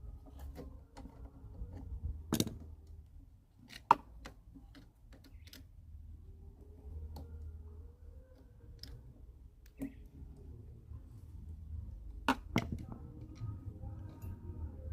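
Scattered metal clicks and knocks of tools and small parts being handled while a lawnmower carburetor is taken off, with a few sharper clicks about two and a half, four and twelve and a half seconds in. A low rumble runs underneath.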